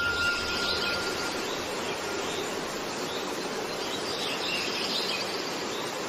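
A steady hiss with faint, high chirps over it.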